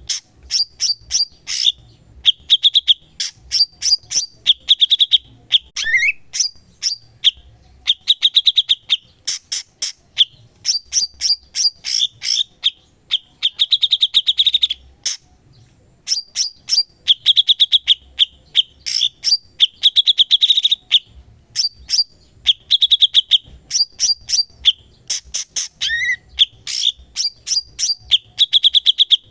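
Cucak cungkok songbird singing without pause: rapid runs of sharp, high chips alternating with fast buzzy trills, with a rising whistle twice. The song breaks off briefly about halfway, then resumes.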